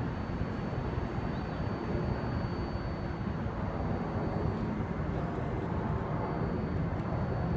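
R188 subway train on an elevated track: a steady low rumble, with a faint, thin high-pitched tone held above it.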